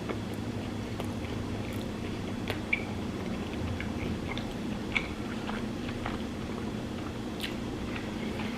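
Close-miked chewing of a bite of a grilled-cheese-style cheeseburger, with scattered small wet mouth clicks at irregular moments over a faint steady low hum.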